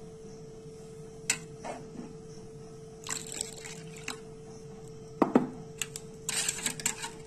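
Milk sloshing into thick mango pulp in a stainless steel bowl, then a metal spoon stirring the mixture, clicking and knocking against the bowl, with one sharp knock about five seconds in and a quick run of clinks near the end.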